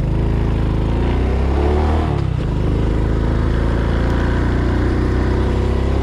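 Honda Dash 125 FI motorcycle's single-cylinder four-stroke engine pulling away and accelerating, its pitch rising, dropping at a gear change about two seconds in, then climbing again.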